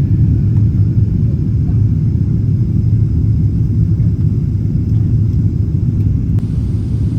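Steady low rumble of a Boeing 777's passenger cabin: engine and airflow noise heard from an economy window seat.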